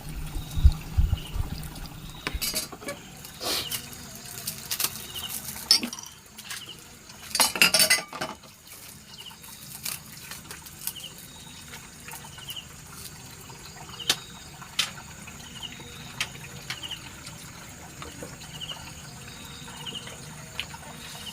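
Water splashing and pouring, with clinks of dishes and scattered knocks; a louder splash comes about seven seconds in. Faint short chirps repeat about once a second.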